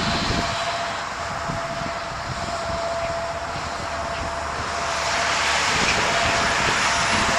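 Steady rushing wind noise with gusts buffeting the microphone and a faint steady high whine; it gets louder about five seconds in.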